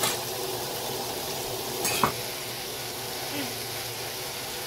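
Vegetables coated in freshly added soy, chilli sauces and vinegar sizzling in a hot nonstick wok while a wooden spatula stirs them, with a steady hiss throughout. The spatula knocks sharply against the pan once about two seconds in.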